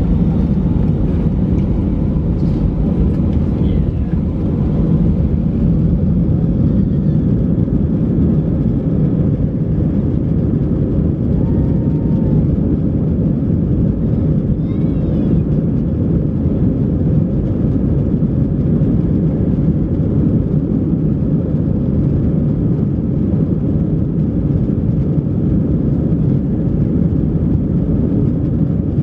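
Steady roar of an Airbus A320's engines and rushing air heard from inside the passenger cabin in flight, a deep even drone without rise or fall.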